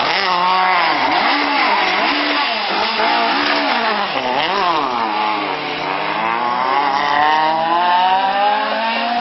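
Rally car engine revving hard through a tight turn. The pitch dips and rises several times as the driver works the throttle, then climbs steadily in the second half as the car accelerates away.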